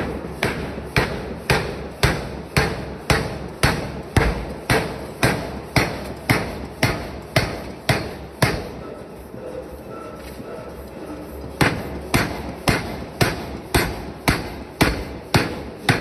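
Power forging hammer striking a red-hot steel billet in steady blows about twice a second, upsetting it into a disc. The blows stop for about three seconds midway, then start again.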